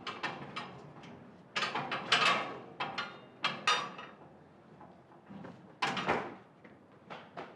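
A chained iron gate rattling and clanking as it is shaken and climbed over, in a series of sharp metallic knocks with loud bursts about two seconds in and again near six seconds.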